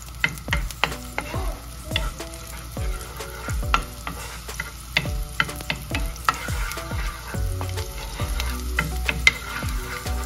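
A wooden spatula stirs minced garlic and onion sizzling in oil in a nonstick frying pan. There are frequent light clicks and scrapes of the spatula against the pan.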